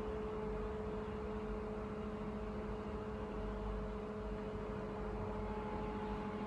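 Steady machine hum over a broad hiss, holding several constant tones; a higher tone joins about five seconds in.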